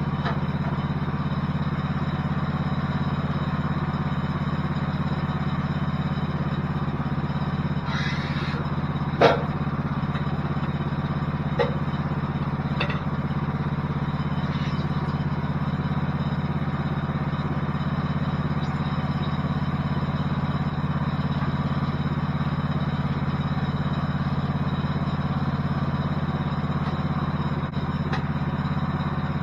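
Woodland Mills HM-126 bandsaw sawmill's gasoline engine running at a steady speed. A sharp knock comes about nine seconds in, and a few lighter clicks follow.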